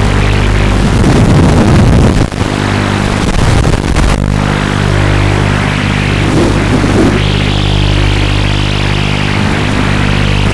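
Emax Nighthawk FPV quadcopter in flight: its motors and propellers give a steady low buzz under a hiss that swells and fades as the throttle changes.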